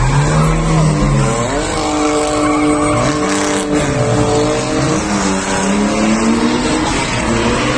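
BMW 3 Series drift cars at full throttle mid-drift, engine pitch rising and falling, with tyres spinning and squealing against the tarmac.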